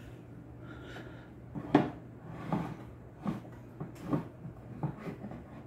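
Canned goods and groceries set down and shifted on wooden pantry shelves: a string of about seven knocks and clunks, the loudest about two seconds in, over a low steady hum.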